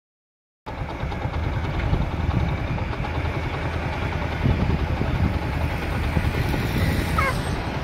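Heavy diesel machinery, tractors and an excavator, running steadily with a low engine rumble that starts just under a second in.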